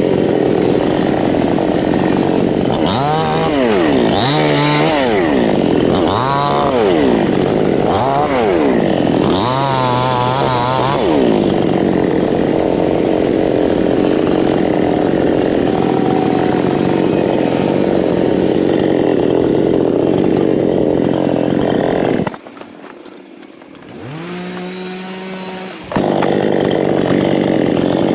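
Two-stroke chainsaw cutting teak. It revs up and down several times, then runs steadily at full throttle. About three-quarters of the way through it drops back to a low idle for a few seconds, then opens up again near the end.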